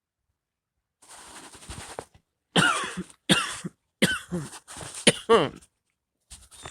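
A man coughing hard several times in a row, short loud coughs after a softer breathy stretch, typical of coughing after a hit from a smoking bowl.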